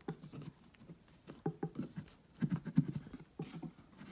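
Light knocks and clicks from the drawers of a fabric-covered cardboard chest of drawers being pulled open and handled, with a quick run of knocks about two and a half seconds in.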